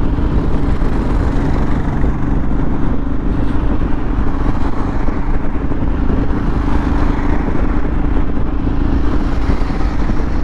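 Motorcycle engine running at a steady cruising speed, its hum held at one even pitch under a constant rush of wind and road noise.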